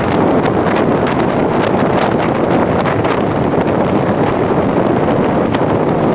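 Loud, steady wind rushing and buffeting over the microphone, as on a moving ride.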